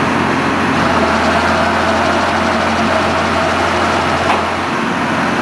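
Rotary drilling rig's engine running steadily, with a brief knock about four seconds in.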